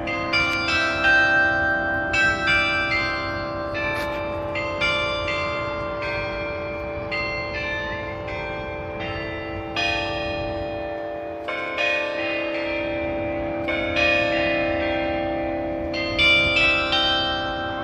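A 95-bell carillon playing a tune: many bells struck in quick melodic runs, each note ringing on over the long hum of the larger bells.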